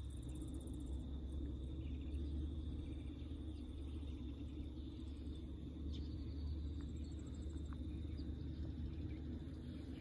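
Rural outdoor ambience: a steady, high-pitched insect trill over a low, steady rumble, with a few faint ticks.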